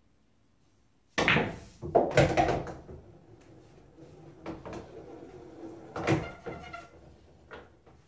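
Pool shot: a cue tip strikes the cue ball about a second in, then the balls knock together and against the table in a series of sharp clacks and thuds. There is another loud knock about six seconds in, with fainter ones after it.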